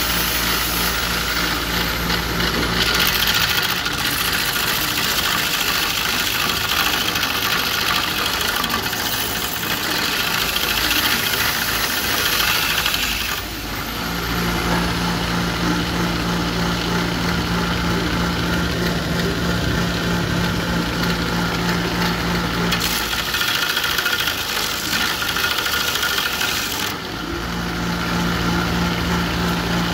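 A 1/2 HP, 6-inch bench grinder driving a home-built belt sander attachment, its motor running with a steady hum. A block of wood is pressed against the sanding belt twice, for about ten seconds starting about three seconds in and again for a few seconds later on, adding a loud hiss of sanding.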